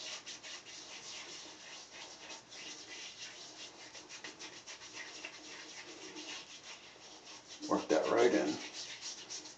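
Hands rubbing and massaging a pre-shave product into damp, stubbled facial skin, a soft continuous scratchy rubbing. A brief louder sound breaks in about eight seconds in.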